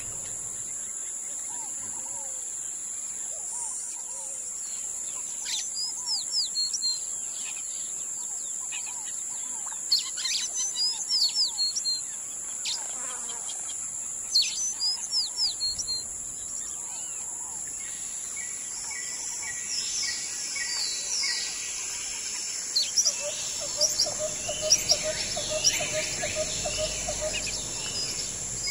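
Wild birds calling in bursts of short, clear whistled notes over a steady high-pitched insect drone. The calls grow busier in the second half, ending with a quick run of lower repeated notes.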